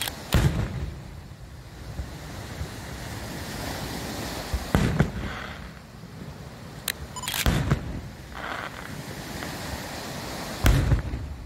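Aerial fireworks shells bursting: four loud bangs a few seconds apart, with a fainter pop between them, over a steady rushing background noise.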